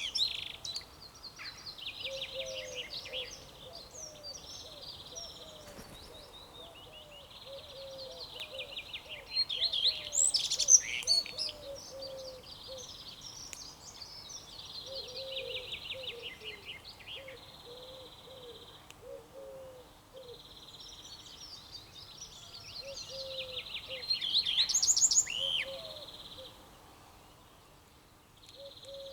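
Several songbirds singing together, with repeated trilled phrases and louder bursts of song about ten seconds in and again near the end, over a steady chorus of soft, low, short notes.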